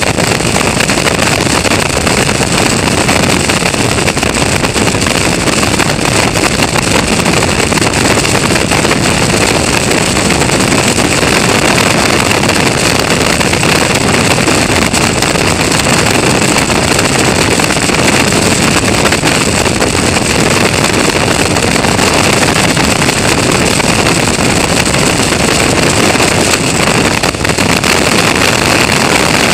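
Caterham Seven race car at full racing speed, its engine running hard under a steady rush of wind buffeting the onboard camera's microphone.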